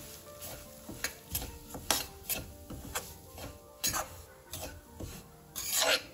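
Metal spatula scraping and stirring semolina through ghee around a stainless steel kadhai in quick, irregular strokes, with a light sizzle: the rava is being roasted in the ghee. One longer, louder scrape comes near the end.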